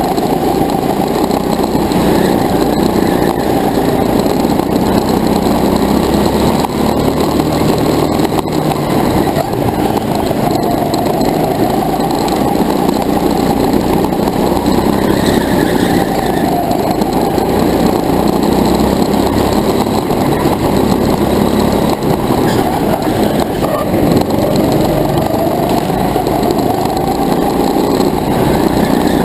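Go-kart's small engine running hard, its pitch dipping and rising again several times as it slows for corners and speeds up out of them. It is heard loud and close, over a constant rushing noise.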